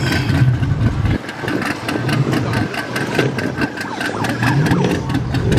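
Car engines running as vehicles drive slowly past in a line, with one engine revving up about four and a half seconds in.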